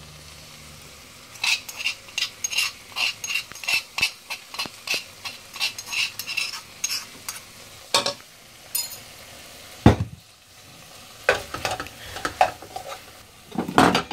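Slotted spoon stirring and scraping in a non-stick pot of frying prawns and drumsticks, as crushed garlic and ginger go in: quick scrapes about three or four a second, then a few louder knocks of the spoon against the pot, over a faint steady sizzle.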